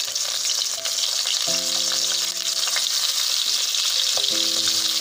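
Stuffed brinjals frying in hot oil in a kadhai, a steady sizzle as they are laid into the pan one by one.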